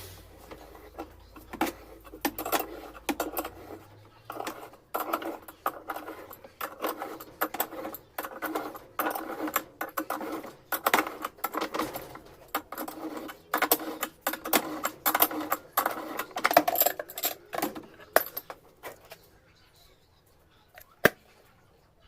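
Metal tools and parts clinking, rattling and knocking in irregular clusters as a washing machine is taken apart by hand. The clatter thins out near the end, leaving one sharp knock.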